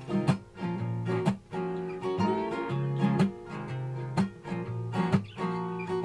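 Background music: a song with strummed acoustic guitar chords in a steady rhythm.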